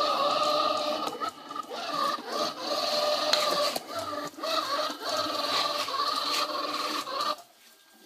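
XRobot 510D robot vacuum cleaner running: a steady motor whine with scraping and rubbing from its brushes, wavering and dipping at times with a few clicks, then cutting out almost to silence near the end.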